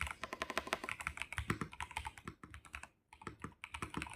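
Fast typing on a VGN N75 gasket-mounted mechanical keyboard with PBT keycaps: a rapid, uneven stream of keystrokes with a brief pause about three seconds in.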